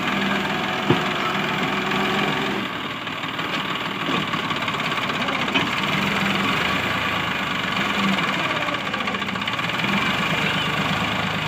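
New Holland 3230 tractor's three-cylinder diesel engine running under load as it pulls a trolley full of mud through soft ground, hard enough to lift its front wheels. A sharp knock about a second in.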